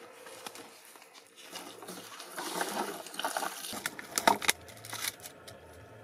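Plastic bottles crinkling and crackling as they are handled, with scuffing steps on loose soil. A cluster of sharp clicks about four seconds in is the loudest part.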